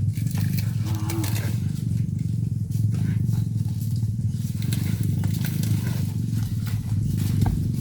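A small engine running steadily at a low, even pulse, with scattered light clicks and knocks over it.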